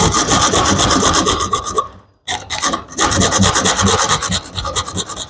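A bare hacksaw blade, held by hand without a frame, sawing quickly back and forth through a metal piece clamped in a bench vise: a fast rasping rhythm of strokes, broken by a short pause about two seconds in. This is the final part of a slot cut.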